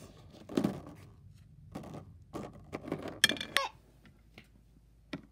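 Small toys being handled and set down in a box: a handful of light knocks and clatters of small hard objects.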